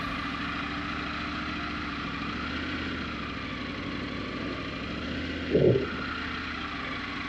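Motorcycle engine running steadily at a slow crawl speed, low in the revs. About five and a half seconds in there is one brief, louder low sound.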